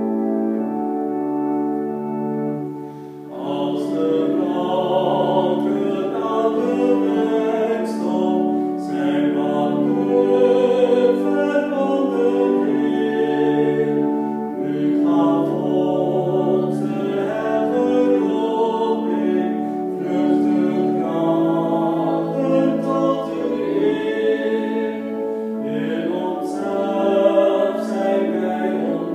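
An organ plays sustained chords. From about three seconds in, a man and a woman sing a hymn together over the organ accompaniment.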